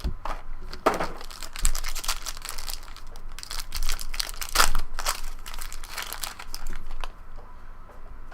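Crinkling and tearing of packaging as a trading card box and its pack are torn open by hand, in irregular crackly bursts with the loudest tears about a second in and just past the middle.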